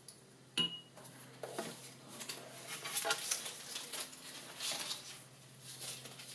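Light handling of painting supplies on a tabletop: a plastic watercolour palette set down and a paintbrush put into a glass water cup. There is one sharp click with a short ring about half a second in, then soft taps and rustles over a low steady hum.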